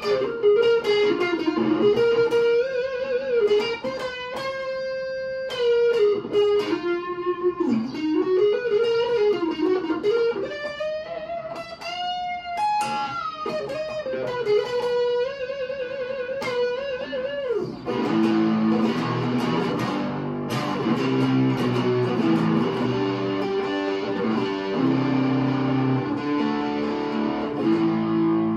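Add1st Strat-style electric guitar with a maple neck and basswood body, played through an amp: a lead line of single sustained notes with string bends and vibrato, changing about two-thirds of the way through to chords played lower down the neck.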